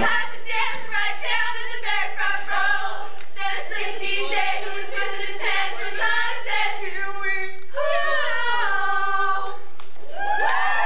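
Teenage boys and girls singing together in chorus, with a few long held notes near the end and a swooping note just before it ends.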